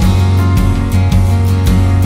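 Background music with a steady beat over sustained low notes.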